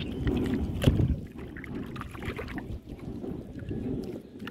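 Low rumbling wind noise on the microphone, with scattered wet clicks and squelches from bare feet walking in soft mud, and one sharp knock about a second in.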